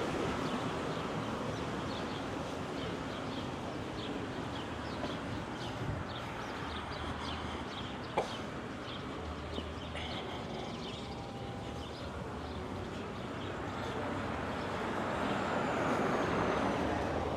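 Outdoor waterfront ambience: a steady rumble of distant traffic that swells near the start and again near the end, with small birds chirping through the first half and a single sharp click about eight seconds in.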